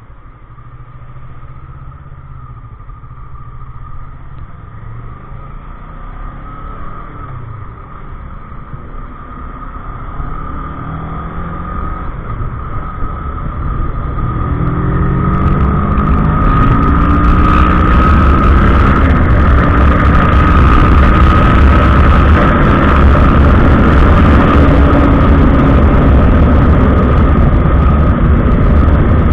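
Kawasaki ER-6n parallel-twin engine pulling away and accelerating, its pitch climbing several times as it shifts up through the gears. It gets steadily louder, and from about halfway through a loud low rumble of wind noise on the action camera mic covers it as speed builds.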